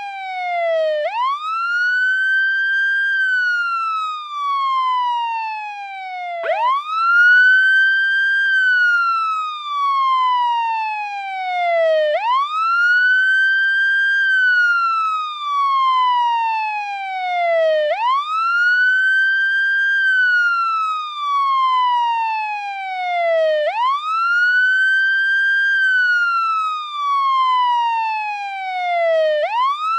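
American police siren on its wail setting, cycling steadily. Each cycle rises quickly, then falls slowly over about four seconds, about five times.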